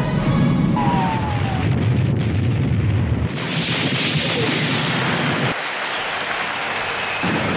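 Bomb explosion with a deep, heavy rumble that lasts about three seconds, and a short falling whistle about a second in. After that the rumble gives way to a steady rushing noise.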